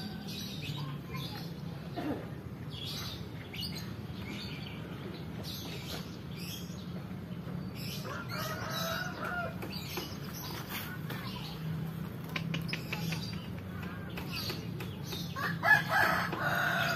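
A rooster crowing twice, once about eight seconds in and again, louder, near the end, with small birds chirping and a low steady hum underneath.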